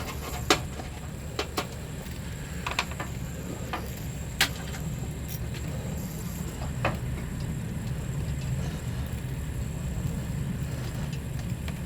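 Scattered sharp metallic clicks and taps of a screwdriver and screws as the two top screws come out of a Beckett oil burner's cover, over a steady low rumble.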